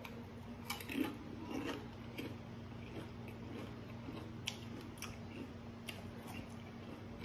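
Faint chewing of a tortilla chip dipped in white dip, with scattered soft crunches and clicks.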